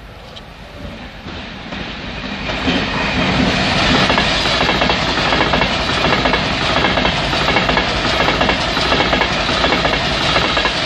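Express passenger train running through at speed. The sound swells over the first few seconds, then holds as a loud, steady rush, with rapid clattering of wheels over rail joints and points.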